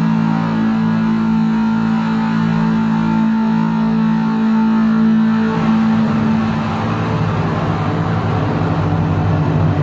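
Loud, distorted electric guitar drone from a Travis Bean guitar through a PA, a sustained chord ringing on, moving to a lower chord about six seconds in.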